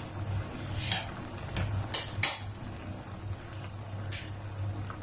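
A few short, light metallic clinks of cookware or utensils, the loudest about two seconds in, over a steady low hum.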